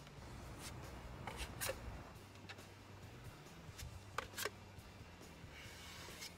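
Plastic spreader scraping 3M body filler onto a painted boat hull in several short, separate strokes, over a low steady hum.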